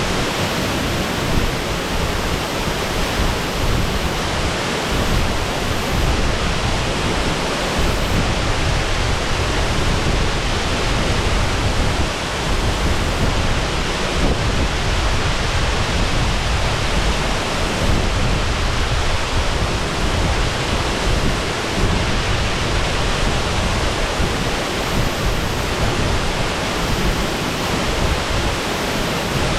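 Shasui Falls waterfall pouring steadily: a loud, even rush of falling water with a deep rumble underneath.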